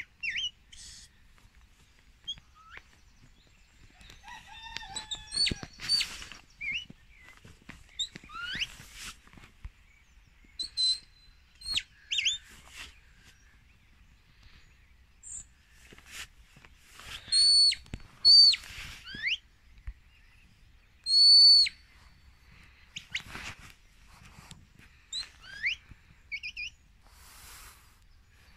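Shepherd's whistle commands to a working sheepdog: a series of short, shrill whistle notes, some held flat and some sliding up or down. The loudest calls come about two-thirds of the way through.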